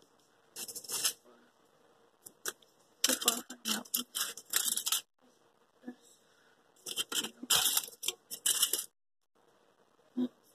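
Crinkling and rustling of small craft materials handled close to the microphone, in three crackly bursts with a few short clicks between them.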